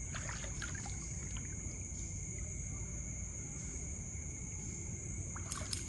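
Steady high-pitched insect drone over the low rush of creek water, with a few faint small splashes early on and a burst of splashing near the end.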